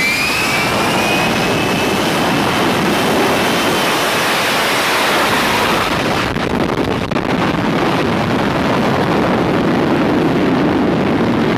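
F-35B Lightning II jet engine running loud at high power for a short takeoff from a ship's deck: a dense jet roar with a high whine that slides slightly lower over the first couple of seconds. About six seconds in, the sound loses much of its high hiss.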